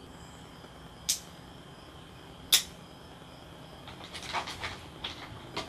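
Handling a small plastic MP3 player and its protective sticker film: two sharp plastic clicks a second and a half apart, then a short run of crackling as the peeled film is handled.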